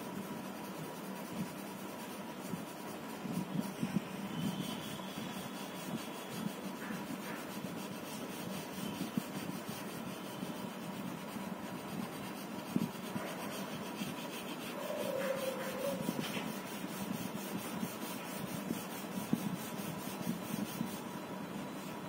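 Pencil sketching on paper: soft, irregular scratching strokes as a bird outline is drawn, over a steady background hum.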